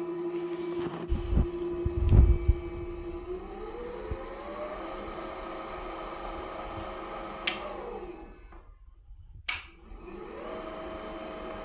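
2M112 bench drill press running with a steady motor whine, a few low knocks early on, the pitch climbing about three seconds in. Near the end it is switched off and winds down to quiet, then a click and it starts again and spins back up.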